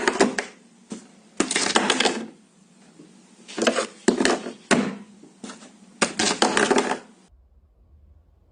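Four bursts of rattling, clinking clatter of small hard objects, each lasting about a second; it cuts off abruptly about seven seconds in.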